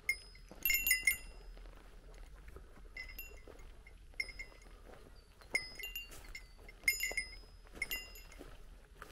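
Hiker's small metal bell jingling in irregular clusters of strikes, each ringing briefly at the same few high pitches, jostled with each step down the trail.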